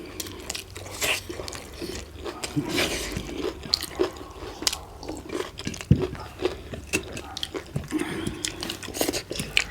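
Fast, wet chewing and smacking of people eating saucy chilli chicken momos, with many irregular small clicks and slurps.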